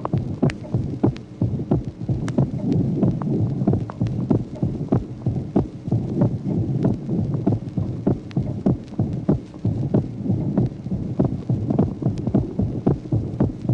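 Recorded heart sounds heard through a chest microphone: a regular heartbeat of first and second heart sounds repeating as short thuds and clicks over a steady low hum. The second heart sound is closely split, and the split varies with breathing as the pulmonary valve closes after the aortic valve on inspiration: a physiological splitting of S2.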